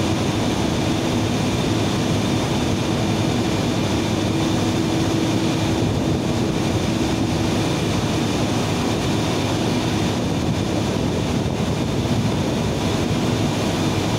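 Steady drone of steam power-plant machinery, a constant rushing noise with a hum and a few fixed high tones over it.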